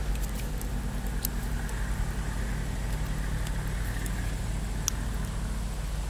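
A steady low hum like an idling engine, with a few faint sharp crackles from hot coals, one about a second in and another near five seconds.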